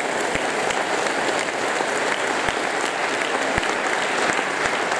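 A large audience applauding steadily, a dense even patter of many hands clapping.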